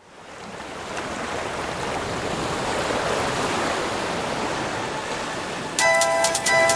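Sea surf washing ashore, a steady rush of waves that fades in over the first second. Near the end, music of short, bright notes comes in over it.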